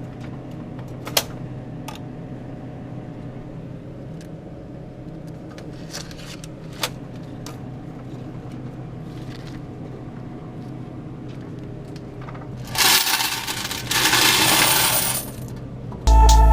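Coins clinking now and then over a steady low hum, then a loud stretch of coins rattling and pouring about thirteen seconds in, lasting a couple of seconds. Music with a beat starts right at the end.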